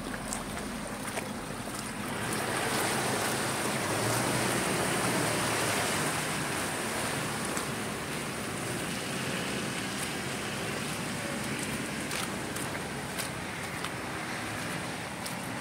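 Toyota Hilux pickup driving slowly through a muddy off-road course: a steady rushing noise of engine and tyres in mud and water, swelling about two seconds in and easing after about seven, with wind on the microphone.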